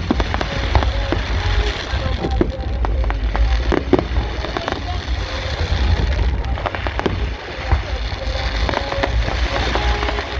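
Fireworks going off: a steady barrage of sharp cracks and pops over a dense crackling haze and a deep rumble.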